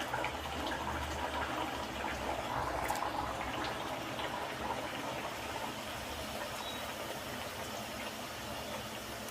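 Bhatura dough deep-frying in hot oil: a steady sizzling and bubbling with small crackles, a little louder in the first three seconds.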